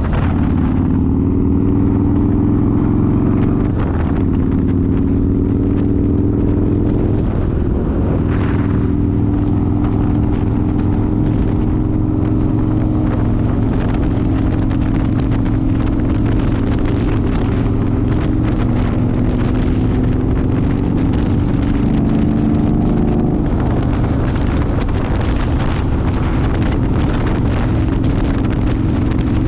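Harley-Davidson V-twin motorcycle engine running under way, its pitch drifting gently up and down as speed changes, with wind noise on the microphone.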